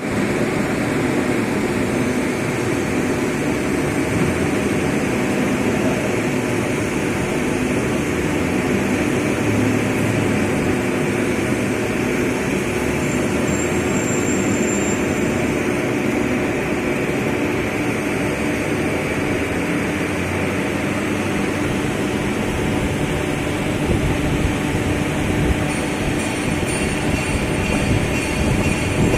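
A large metal-turning lathe running steadily during a turning cut, a continuous machine noise with several steady tones in it.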